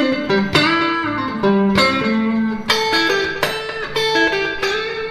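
Squier Stratocaster electric guitar playing a blues lick of single plucked notes, some of them bent upward in pitch.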